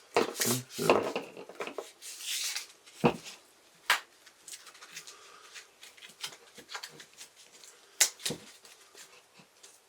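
Handling noises while unpacking: packaging rustling in short bursts, with scattered sharp clicks and knocks as parts are taken out and set down.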